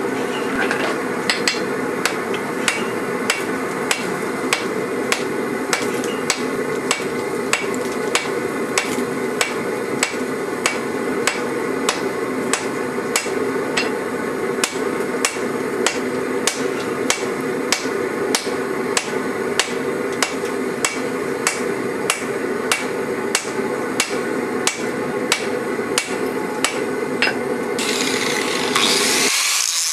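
Hammer blows on a hot laminated steel billet at the anvil, about two a second, over a steady background roar. Near the end a louder rushing noise swells, then the sound cuts off.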